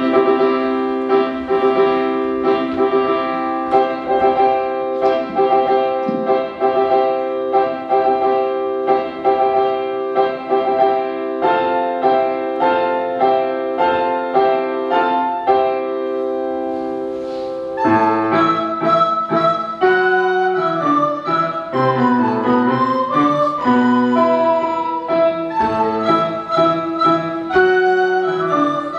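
Recorder ensemble playing an arrangement of a classical piece: long held chords at first, then a quicker moving melody over the chords about two-thirds of the way through.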